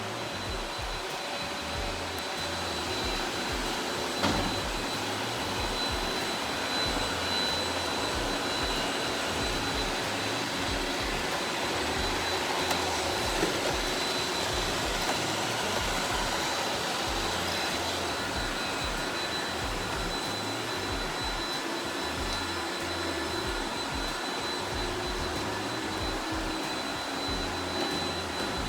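Robot vacuum running: a steady whir from its fan and brushes with a thin high whine, and a single knock about four seconds in.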